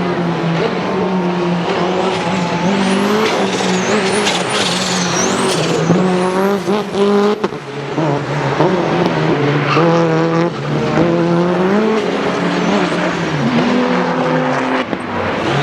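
Modified Lancia Delta HF Integrale rally car, its turbocharged four-cylinder engine running hard on track. The pitch climbs and drops repeatedly through acceleration and gear or throttle changes, with high squeals sliding up and down in pitch above the engine.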